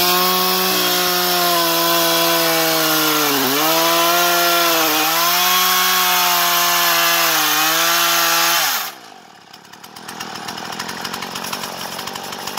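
A small engine running fast with a loud hissing edge, its pitch dipping briefly three times. About nine seconds in the pitch and level drop away, and it settles to a quieter, evenly ticking idle.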